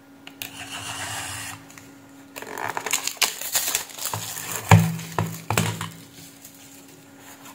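Utility-knife blade slitting the cellophane shrink-wrap on a small cardboard box, then the crinkling and rustling of the thin plastic film as it is pulled off. A couple of soft knocks come as the box is handled and set down.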